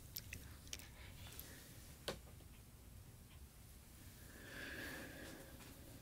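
Faint rustling of a cloth handled close to a binaural microphone, with scattered light clicks and one sharp tick about two seconds in. A louder stretch of rustling comes near the end.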